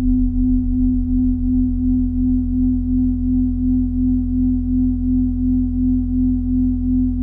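Minimal electronic drone music: a steady pure tone pulsing a few times a second, held over sustained deep bass tones.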